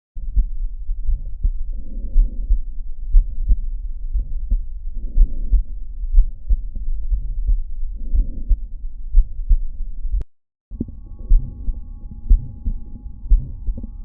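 Heart sounds recorded through a stethoscope: repeated low thuds of the heartbeat. About ten seconds in, the recording cuts to silence for a moment, then a second heart recording begins with faint steady tones behind it.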